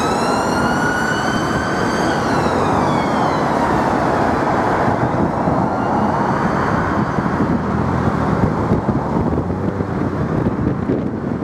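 Emergency ambulance siren wailing in slow rising and falling sweeps, fading away as the ambulance drives off and gone about five seconds in. Steady traffic rumble from the road continues underneath.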